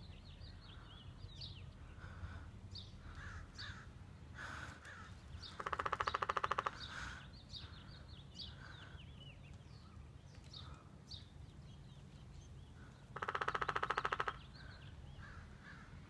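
Woodpecker drumming twice, about seven seconds apart; each drum is a rapid, even roll of strikes lasting about a second. Other birds chirp throughout.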